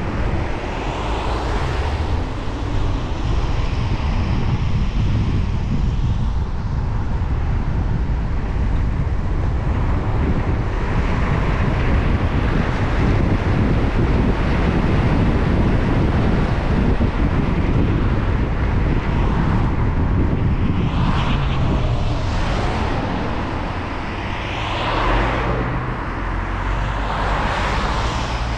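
A car driving on wet roads in the rain: a steady low rumble of engine and road with tyre and spray hiss, and a few louder swishes in the last several seconds.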